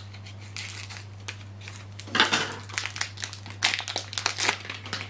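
Clear plastic packaging of an ink cartridge crinkling and crackling as it is handled and opened by hand, in irregular bursts that grow busier and louder from about two seconds in.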